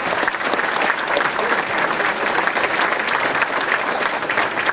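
Banquet audience applauding, a dense steady clapping of many hands.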